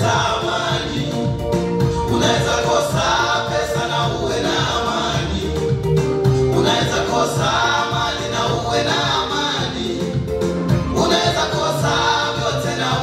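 Swahili gospel song: a man sings into a microphone in phrases over continuous instrumental backing with a steady bass.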